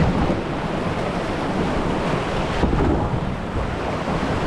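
Steady rushing of whitewater in river rapids, with wind rumbling on the microphone.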